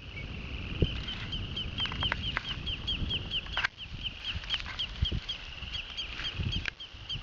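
A bird calling a short whistled note over and over, about four times a second, with a few sharper notes mixed in and a low rumble underneath.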